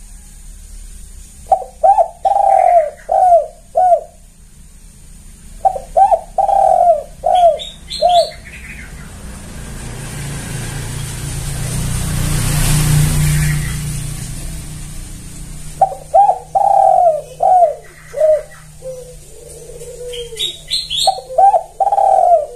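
Spotted dove cooing in four phrases of several short notes each, two near the start and two near the end. In the long gap between them, a broad rush of noise swells up and fades away.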